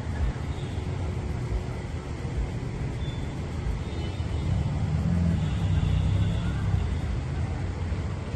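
Road traffic passing, with a low vehicle engine rumble that swells about five seconds in and eases off again.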